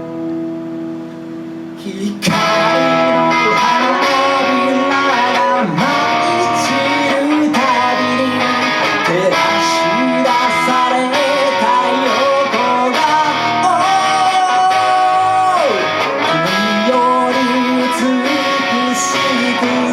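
Live rock band playing a song's instrumental intro. A held chord rings for about two seconds, then the full band comes in loud, with a guitar-led melody over strummed chords.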